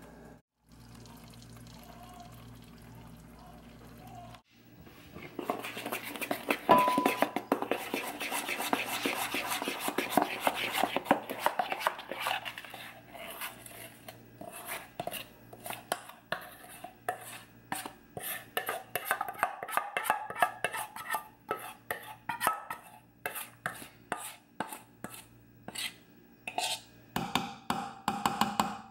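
A spoon stirring and scraping cornbread batter in a glass mixing bowl and scraping it out into a metal loaf pan, clinking against the bowl and pan edge. It begins about five seconds in as quick runs of clicks and scrapes, then thins to separate scrapes and taps a few a second; before that only a faint steady hum.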